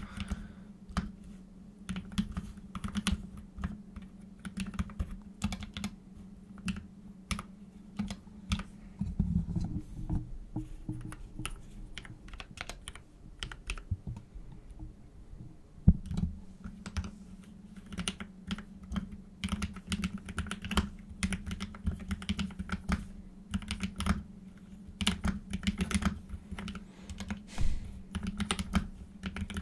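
Computer keyboard being typed on in irregular runs of keystrokes, played as keyboard ASMR, over a steady low hum. The typing thins out for a few seconds midway, and there is one sharp, loud key strike just after that.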